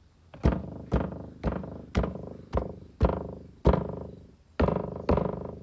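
Repeated knocking from a Volkswagen Polo's door, about two knocks a second, each ringing briefly before it dies away. This is the door knock fault that is about to be fixed.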